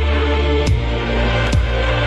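Electronic dubstep-style background music: sustained deep bass under a slow beat, with two heavy drum hits that drop in pitch.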